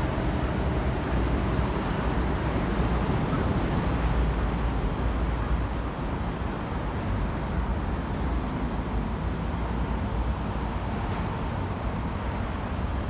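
Steady outdoor ambient noise: a low rumble with a fainter hiss above it, holding an even level throughout.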